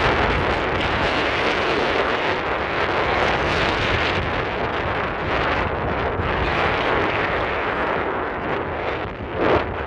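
Wind buffeting the microphone in a steady rumbling hiss, with a brief louder gust near the end.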